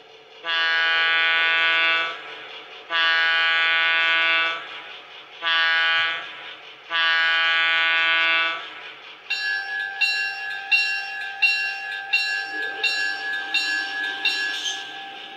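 Model-railroad sound module playing a Leslie A-200 diesel air horn sample through a small speaker: four blasts, long, long, short, long, the grade-crossing signal. After about nine seconds a locomotive bell sample starts ringing about once every 0.7 seconds, with the diesel prime mover sound idling faintly underneath.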